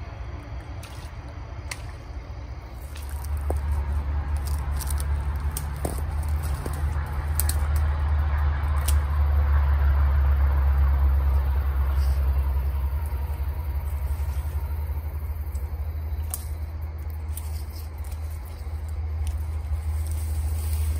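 A vehicle passing by: a low rumble that builds to a peak about halfway through and then slowly fades. Scattered light clicks and rustles sit on top of it.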